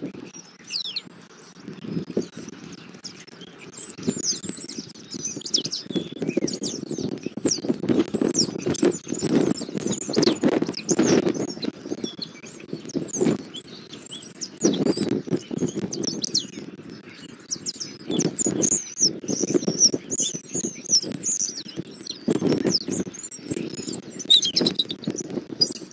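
Small birds chirping and twittering in many quick, high calls, over a low, uneven rustling that swells and fades in waves.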